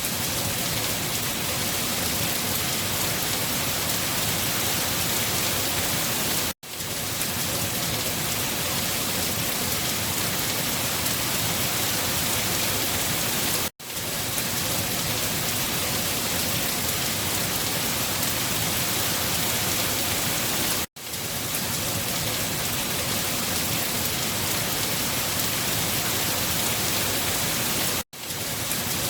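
Steady, even rain with no thunder. It cuts out to silence for a split second about every seven seconds, four times in all.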